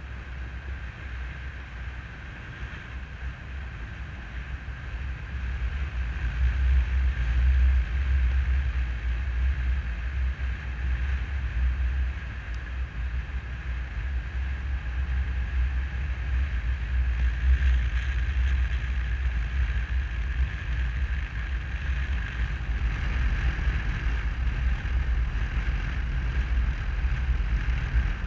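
Airflow buffeting the camera microphone in paraglider flight: a steady low rumble that grows louder about six seconds in, with a thin steady whistle above it.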